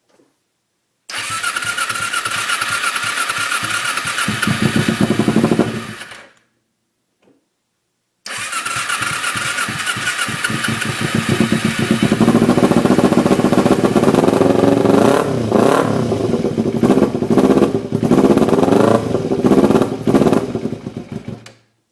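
2010 Kawasaki Ninja 250's parallel-twin engine being cranked on the starter in a hard start, heard right at the race exhaust's muffler: a first attempt of about five seconds that dies away, then a second, longer attempt that gets louder and turns uneven as the engine fires intermittently before stopping.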